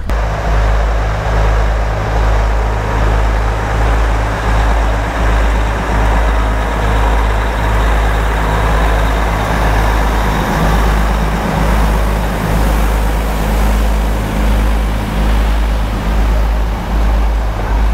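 Diesel locomotive of the Matheran narrow-gauge toy train running, a loud, steady, deep engine rumble.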